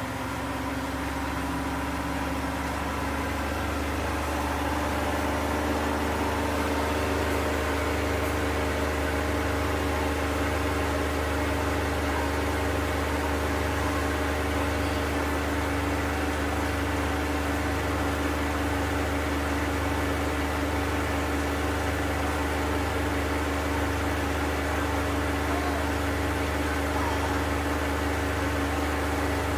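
ASKO W6564 washing machine on its 1600 rpm spin cycle. The drum's spin hum rises and settles over the first few seconds, then holds a steady high-speed whir.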